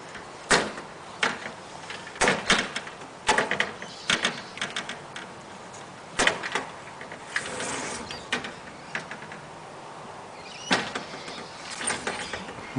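Sliding glass door knocking and rattling in its frame as a baby grips and pulls on it: a string of sharp, irregular knocks and rattles, some in quick clusters.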